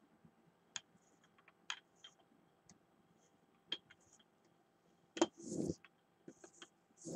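Faint scattered clicks and taps of art supplies being handled. About five seconds in comes a rasping stroke of a rubber brayer over acrylic paint on a gel printing plate, and near the end the brayer starts rolling back and forth at about three strokes a second.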